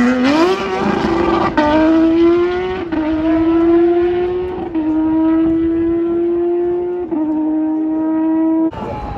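1990s Formula 1 car accelerating away at full throttle, its high-pitched engine note climbing steadily and dropping a little at each of four quick upshifts. The sound cuts off suddenly near the end.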